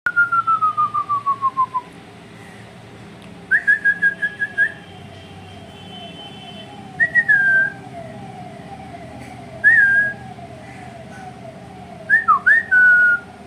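Parrot whistling in short clear phrases. It opens with a falling pulsed whistle, then gives a quick trill, then single swooping whistles every few seconds. Underneath, a fainter warbling tone repeats about twice a second.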